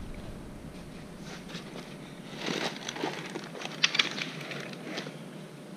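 Packaging rustling and crackling as parts are taken out of their boxes, with scattered clicks and one sharp click about four seconds in.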